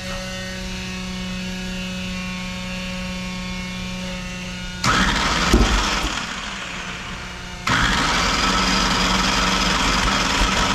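An electric water pump hums steadily on the homemade V12 race engine. About five seconds in the engine cranks and fires, fades, then fires again near eight seconds and keeps running, a sound the crew judges not right.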